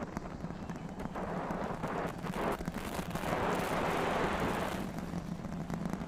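Starship Super Heavy booster's Raptor engines at full thrust during ascent: a crackling rumble that swells about three seconds in and eases again about five seconds in.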